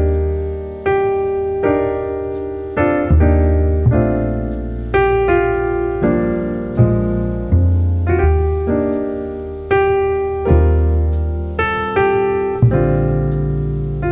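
Piano music: a slow melody of single struck notes over low bass notes, each note fading after it is struck.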